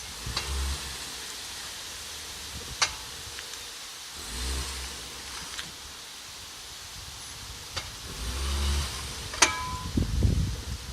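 Mitsubishi Outlander 3 engine swelling briefly three times as the car tries to pull away, with two sharp metallic knocks from the drivetrain, one about three seconds in and one near the end just after a rise in engine speed. The knock comes as the all-wheel drive engages the rear axle under load, a fault that the owner places around the rear differential, as if something jumps off a spline.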